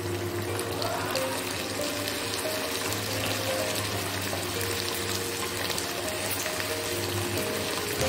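Onions and green capsicum sizzling steadily in a hot wok just after a splash of vinegar, under soft background music.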